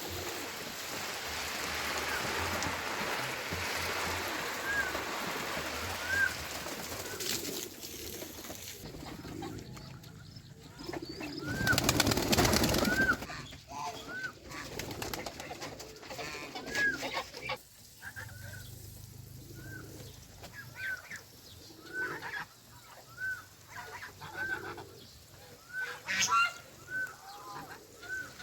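Farm poultry calling, with many short high chirps that rise and fall, coming quicker in the second half. Before them there is an even rushing noise, and a loud noisy burst comes about halfway through.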